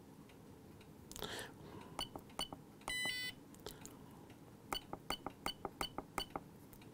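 Button presses on a RigExpert AA-230 Zoom antenna analyzer's keypad: a few light clicks, a short electronic beep about three seconds in, then a quick run of about nine clicks near the end.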